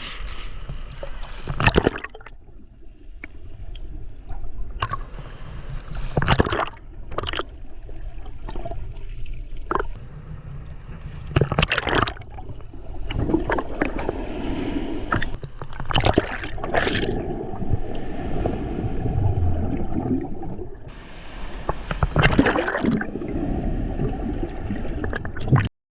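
Water sloshing and gurgling close around the microphone, with repeated splashes; the sound cuts off suddenly near the end.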